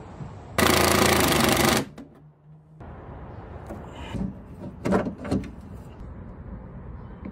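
A power tool runs in one loud burst of about a second, a rapid hammering rattle. A few sharp clicks of metal hardware being handled follow about five seconds in.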